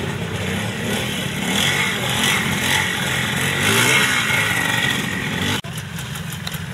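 Vintage trials motorcycle engine revving up and down as the bike picks its way over rocks. About five and a half seconds in the sound cuts off abruptly, and a motorcycle engine runs on at steadier, lower revs.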